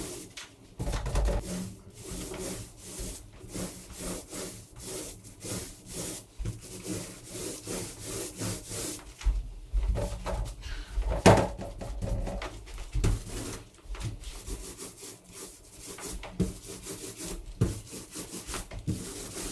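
An 18-inch paint roller on an extension pole rolling paint onto a wall in repeated strokes, a rhythmic rubbing, with one sharp knock about eleven seconds in.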